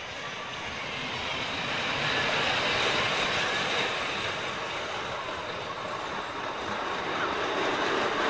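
Children's steel roller coaster train running along its track, a steady rumble of wheels on rails that grows louder over the first couple of seconds as it comes closer, eases a little and swells again near the end.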